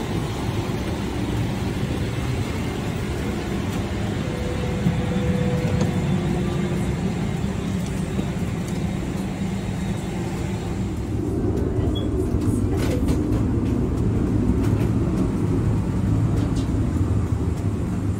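Steady low rumble and hiss of an airliner cabin's air system at the gate. About 11 seconds in, the hiss drops away, leaving a lower rumble.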